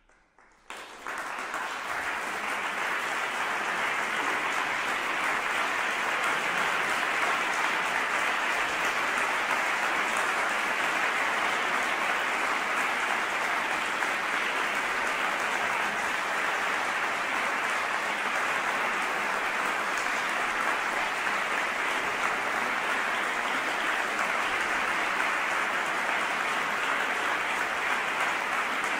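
Audience applauding. It breaks out suddenly about a second in and then keeps up steadily.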